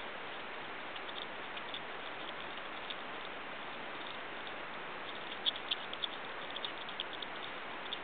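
North American porcupine gnawing kernels off a corn cob: faint, crisp crunching clicks, scattered at first and coming in a quicker run in the second half, over a steady hiss.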